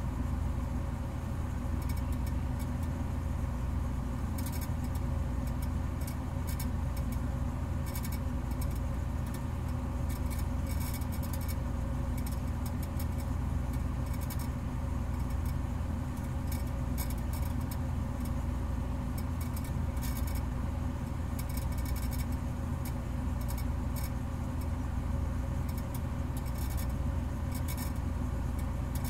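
A steady low rumble with a constant hum, with irregular bits of faint high crackle scattered through it.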